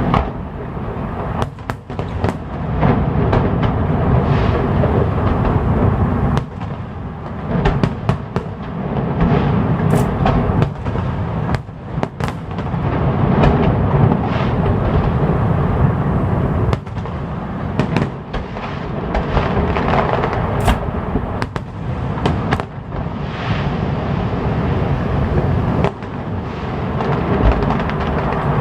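Fireworks display in full swing: a dense, continuous barrage of booming shell bursts and crackling, easing briefly three times before building again.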